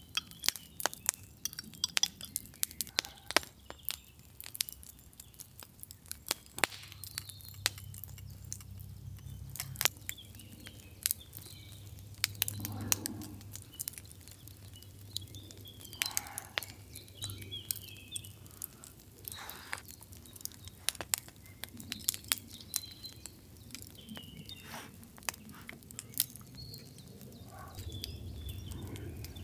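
Irregular sharp clicks and crackles throughout, with a bird chirping a few times.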